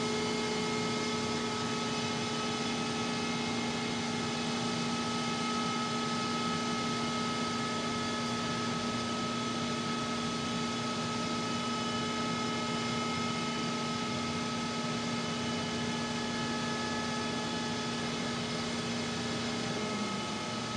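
Steady electrical hum from power-plant switchgear cabinets: several fixed tones over a constant hiss, unchanging throughout. The lowest tone fades near the end.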